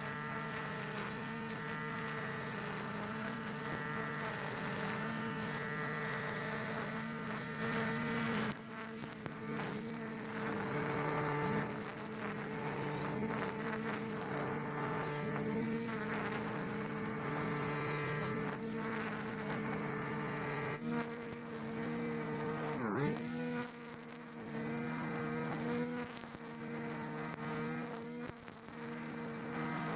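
Backpack brush cutter running at high revs, spinning 2.2 mm nylon trimmer line through grass: a steady, high engine whine. About three quarters of the way through, the revs dip sharply and climb back.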